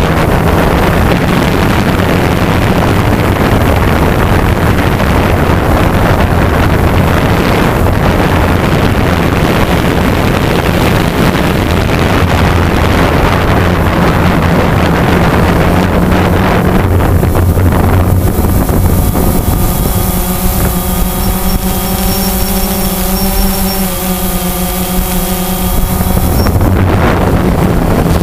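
DJI Phantom 2 quadcopter's motors and propellers heard from the camera on board: a loud, steady buzzing hum with rushing air noise. For several seconds past the middle the rushing drops and the motors' hum comes through as a cleaner set of steady tones before the rushing returns near the end.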